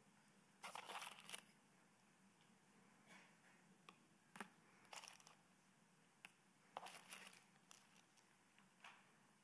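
Faint, brief scrapes and crinkles of serving tongs working roasted sweet potato cubes off a parchment-lined baking pan onto a plate, about six short rustles spread through a near-quiet stretch.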